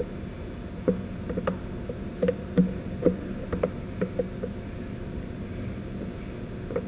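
A wrench tightening a threaded 3/8-inch NPT hose-barb fitting into a plastic air-intake box, giving irregular clicks from about a second in until a little after four seconds. A steady low hum runs underneath.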